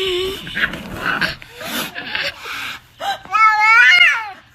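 A cat's drawn-out yowl, the loudest sound, starting about three seconds in and lasting just over a second, wavering and rising then falling in pitch. Before it there is a stretch of shorter, noisy sounds.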